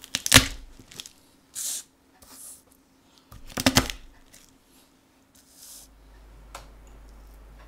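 Garlic cloves crushed under the flat of a chef's knife blade on a wooden cutting board: two bursts of sharp crunching cracks about three seconds apart, with softer short rustles in between.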